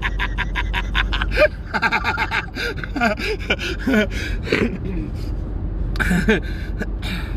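A man laughing hard: a quick run of ha-ha pulses in the first second or so, then shorter bursts of high, sliding laughter. The steady low rumble of road noise inside the car's cabin runs beneath it.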